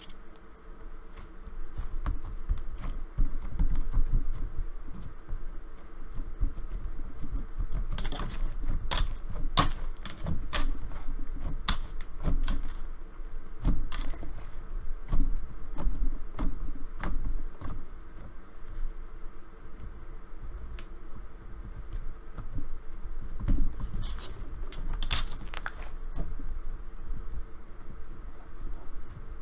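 Slime being worked by hand while bits of dried-out clay are picked out of it: sticky clicks, small pops and crackles with dull handling thumps, denser runs of sharp clicks about eight to twelve seconds in and again around twenty-five seconds.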